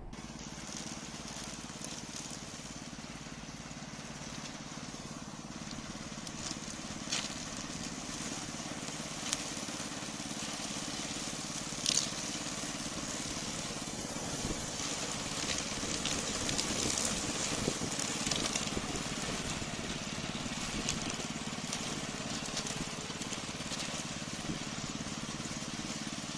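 Hybrid remote-control lawn mower with a 20-inch cutting blade running steadily while mowing, a low hum under a hiss, with a few sharp knocks, the loudest about twelve seconds in.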